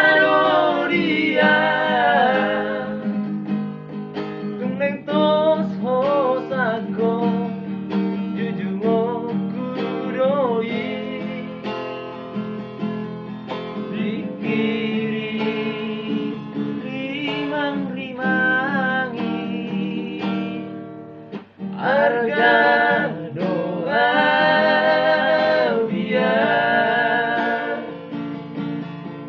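Men singing to a strummed acoustic guitar. The music drops out briefly about three-quarters of the way through, then the singing comes back strongly.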